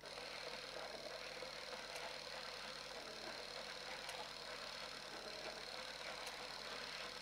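Film projector running: a steady, faint mechanical whir with a thin steady tone and a light click about every two seconds.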